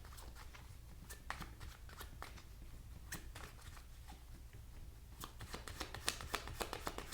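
Tarot cards being shuffled by hand: a run of quick soft flicks and clicks, growing busier about five seconds in, over a faint steady low hum.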